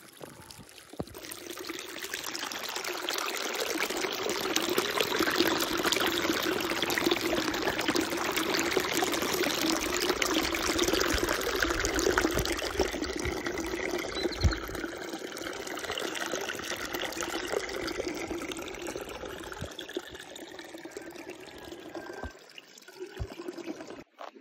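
Running water of a small river pouring and trickling, swelling over the first few seconds and fading again near the end.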